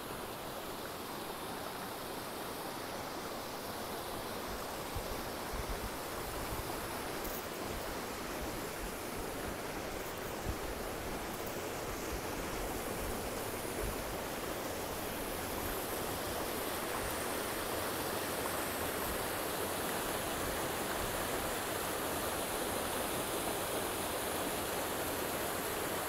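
Small woodland waterfall pouring over a rock ledge into a creek: a steady rush of falling and splashing water that grows gradually louder over the second half. A few brief thumps come in the first half.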